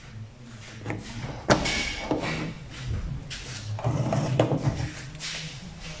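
Plastic clicks, scraping and rattling from a Nissan Note's exterior door handle being worked loose and pulled out of the door, with a sharp snap about a second and a half in and further bursts of clicking and scraping after it.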